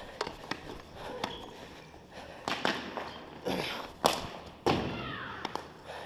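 Floor hockey play on a hardwood gym floor: sticks clacking and hitting, with running footsteps and a few shouts. The two loudest hits come about four seconds in and again half a second later.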